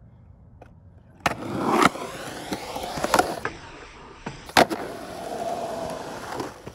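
Skateboard riding a concrete drainage ditch: polyurethane wheels rumbling on rough concrete, broken by several sharp board slaps on the concrete. The loudest comes about four and a half seconds in as the board lands after a trick, then a steadier rolling hum.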